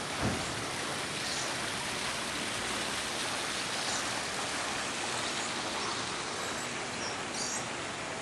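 Steady rushing splash of water from a small garden fountain, with a few short high bird chirps scattered through it and a soft bump near the start.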